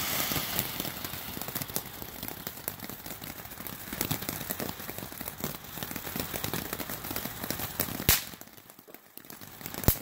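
Ground firework fountain spraying sparks with a dense crackling effect, like rapid popping over a steady hiss. A louder sharp crack about eight seconds in, after which the crackling thins out, and another crack near the end.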